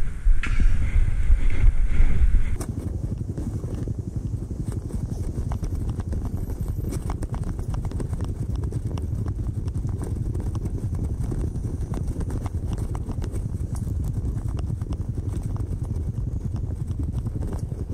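Wind buffeting the camera microphone on a moving bicycle. About two and a half seconds in it cuts to a fast, dense run of clicks and rattles from footage played at four times speed.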